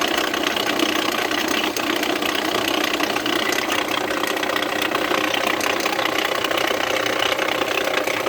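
Jeep Renegade 1.8 flex four-cylinder E.torQ engine idling with a steady, strong mechanical noise and rapid ticking, which the mechanic suspects comes from a failing water pump.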